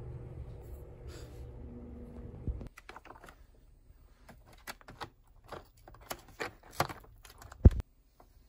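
A low steady hum, then from about three seconds in a series of sharp clicks as fingers poke and shift live cockles, shells clicking against one another, with one louder knock near the end.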